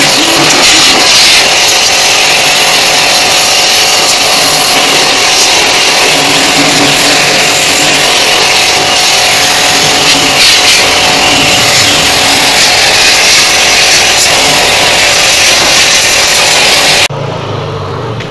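High-pressure washer running, its motor going under the hiss of the water jet blasting the fins of an air-conditioner coil. The loud, steady spray cuts off suddenly near the end.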